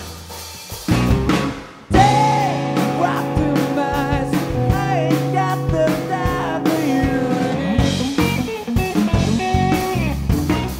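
Blues-rock power trio of electric guitar, bass guitar and drums playing. After a quieter, sparse first two seconds the band comes in loud on a long held chord with a bending lead melody over it, and the drums pick up again near the end.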